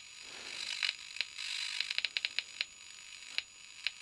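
Irregular sharp clicks of high-voltage flashovers to ground in a transformer under a 6 kV insulation test, with a hiss that swells and fades over the first two seconds. The flashovers are taken for defective insulation inside the transformer.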